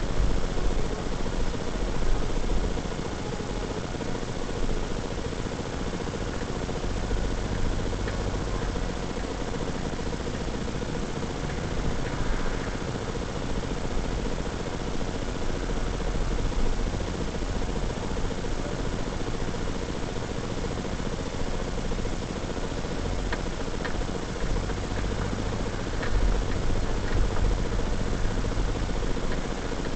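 Car engine and tyre noise heard from inside a moving car through a dashcam microphone: a steady rumble with a constant hiss over it, the low rumble swelling now and then.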